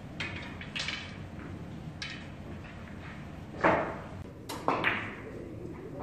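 Carom billiard balls rolling on the table and striking the cushions and each other: a few light knocks, then a sharp ball-on-ball click a little past halfway, followed quickly by three more knocks.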